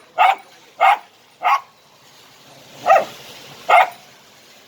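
A dog barking five times: three quick barks about half a second apart, a pause, then two more.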